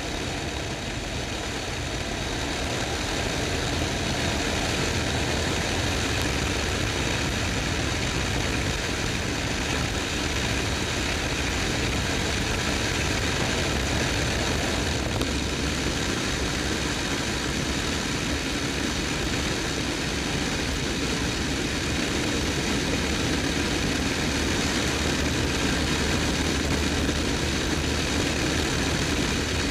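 Touring motorcycle under way: the engine runs steadily under a constant rush of wind and road noise, getting louder over the first few seconds and then holding even.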